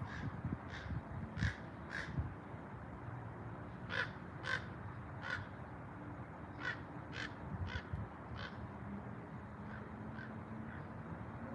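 A bird calling in a series of short calls, about a dozen, in loose groups roughly half a second apart, growing fainter near the end.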